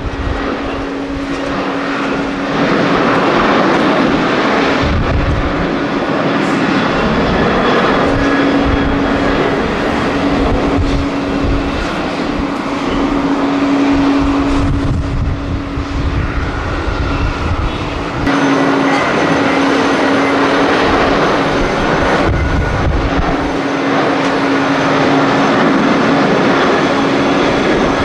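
Boeing 737 airliners' jet engines at takeoff power, a continuous loud rush with a steady hum, covering two successive takeoffs with an abrupt change about two-thirds of the way through. Strong wind buffets the microphone in low rumbling gusts.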